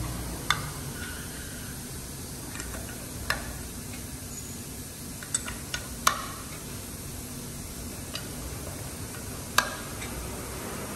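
Light metallic clicks and taps, about seven spread irregularly, as bucket tappets are handled and set into their bores in an aluminium cylinder head, over a faint steady hiss.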